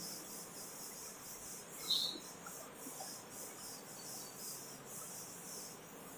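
Board duster wiping a chalkboard: faint, rhythmic swishing strokes, with one brief sharper sound about two seconds in.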